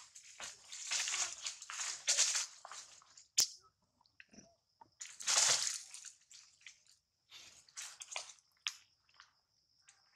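Dry fallen leaves crunching and rustling underfoot in several irregular bursts, with one sharp click about three and a half seconds in, over a faint steady high whine.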